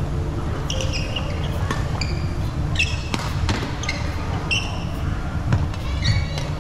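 Badminton rally on a wooden sports-hall floor: sharp racket strikes on the shuttlecock and short, high squeaks of court shoes, several in quick succession, over a steady low hall rumble.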